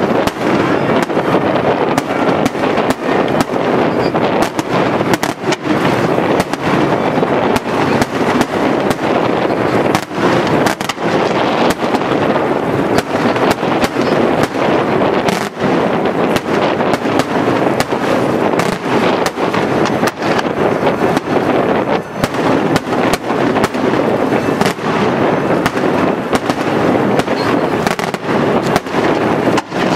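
Daytime fireworks barrage: aerial shells bursting in a rapid, continuous string of loud bangs that overlap with no let-up.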